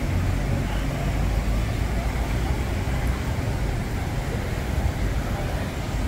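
City street ambience: a steady low rumble of road traffic, with indistinct voices of people nearby.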